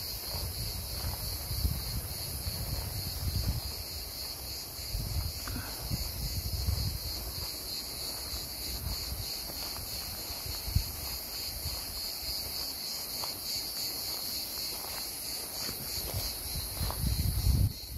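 A steady, high-pitched chorus of cicadas with a fine rapid pulsing. Under it are irregular low thuds and rumbles, a sharp click about eleven seconds in, and a louder low rumble just before the end.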